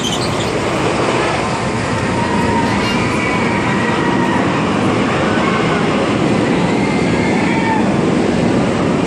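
Spinning amusement ride running with a steady, even rumble, its cars circling the central hub.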